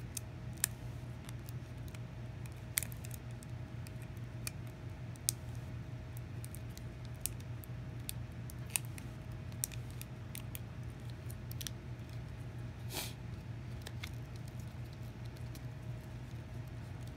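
Small clicks and taps from the plastic and metal parts of a Nikon 70-200mm f/2.8 lens barrel as they are handled and fitted together by hand. There are about a dozen sharp clicks at irregular intervals over a steady low hum.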